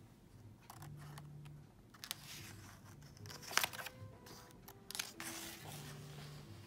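Pages of a paperback picture book being handled and turned: papery rustles and a few sharp flicks, the sharpest about three and a half seconds in.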